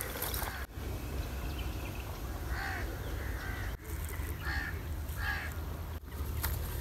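A crow cawing several times, each caw short and harsh, spread over a few seconds.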